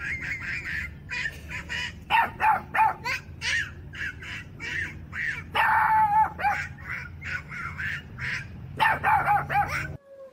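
Boston terrier barking in short, high-pitched yaps, repeated in quick clusters with brief pauses between them.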